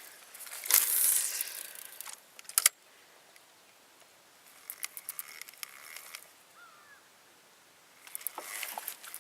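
Fishing rod and reel in use: a hissing rush about a second in that ends in a sharp click, then scattered clicking from the reel.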